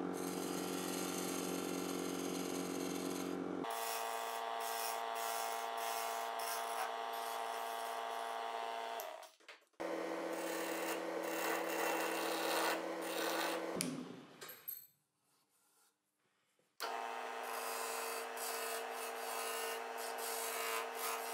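Homemade plywood lathe's electric motor running with a steady hum while a turning chisel cuts the spinning olive-wood workpiece, a continuous scraping hiss. The sound breaks off briefly about halfway through and drops out completely for a couple of seconds in the last third.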